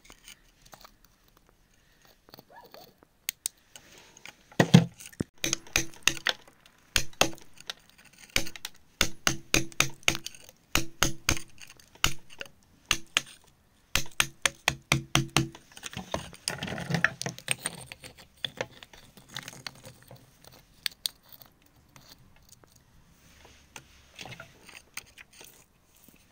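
A metal scraping tool picking and scraping at packed dirt and grit around a smooth stone, in a quick run of sharp clicks and taps that starts a few seconds in, thickens into steadier scraping for a couple of seconds, then thins out.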